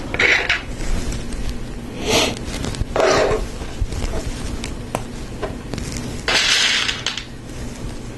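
Hard plastic Lego Technic parts clicking and clattering as they are handled and fitted together, with a few short rattling rustles and a longer one about six seconds in.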